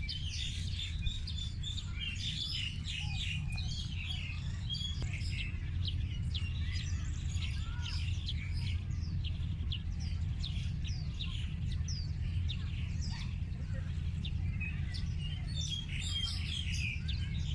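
Many small birds chirping at once, a dense scatter of short high chirps that is busiest at the start and again near the end, over a steady low rumble.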